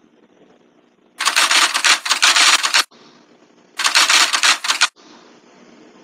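Cartoon sound effect: two loud bursts of rapid mechanical clicking, the first about a second and a half long and the second about a second, over a faint steady background.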